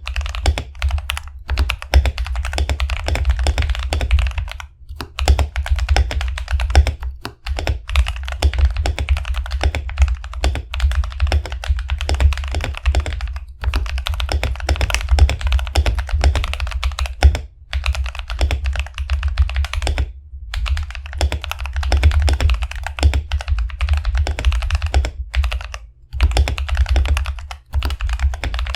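Continuous fast typing on an RK61 mechanical keyboard with lubed Akko Ocean Blue switches, PBT keycaps and foam dampening. It makes a dense stream of keystroke clacks broken by several brief pauses.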